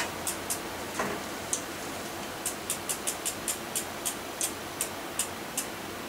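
A run of light, sharp clicks, a few a second and unevenly spaced, from hands working on the rear of a mountain bike, with a single knock about a second in.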